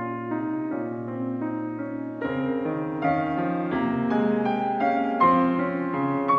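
Solo Yamaha grand piano playing: a held chord for about two seconds, then a low bass note enters and the playing grows louder and busier, with more notes higher up.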